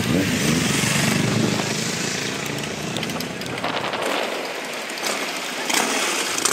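Motorcycle engine running with a low rumble that fades out about three and a half seconds in, leaving steady outdoor hiss and a few light clicks.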